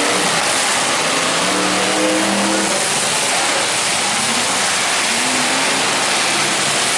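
Demolition derby car engines running and revving under a loud, steady rush of noise, with a rising engine note about five seconds in.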